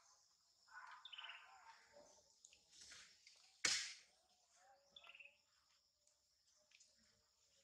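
Faint forest ambience: a steady high hiss with a few short bird chirps, and one brief loud whoosh a little before halfway.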